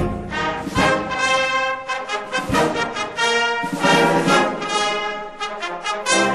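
Concert wind band playing a sustained passage of changing chords, with the brass to the fore. The low instruments drop out for a few seconds in the middle and come back in near the end.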